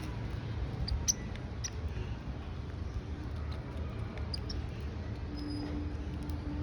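Small birds feeding on seeds: scattered short, high chirps and clicks, a few at a time, over a steady low rumble. A brief low hum comes in near the end.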